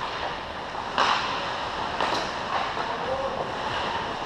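Ice hockey game at an indoor rink: a steady wash of rink noise with faint, distant shouts from players, and one sharp knock about a second in.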